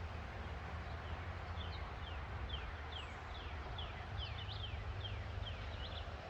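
A bird calling a run of short, high notes, each sliding down in pitch, about three a second, over a steady low rumble.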